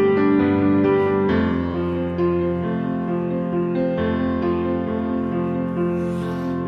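Background piano music: a slow melody over held lower chords.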